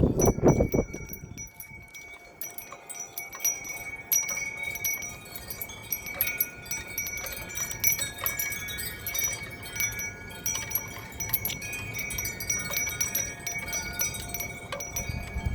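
Several wind chimes ringing continuously in a gust of wind, with many overlapping strikes over steady sustained tones. Wind buffets the microphone in the first second, and a low wind rumble runs beneath.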